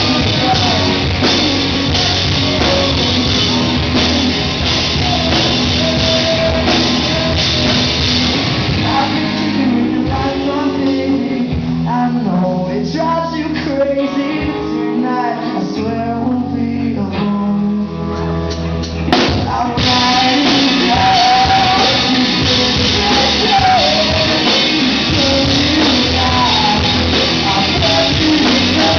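Live rock band playing: electric guitars, bass and drums, with a man singing lead into a microphone. About ten seconds in the band drops to a sparser passage with held low notes, and the full band with cymbals comes back in about nineteen seconds in.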